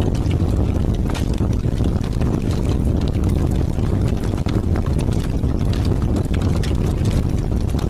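Heavy rain with wind: a steady, deep rumble of wind with dense, irregular drop ticks spattering over it.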